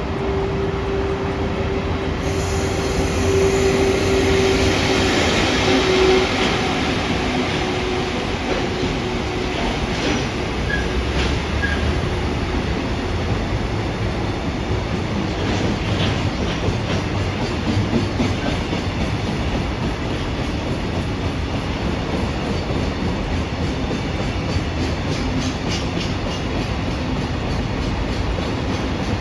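A train running past on the rails, with a steady tone during the first six seconds or so and scattered clicks later on.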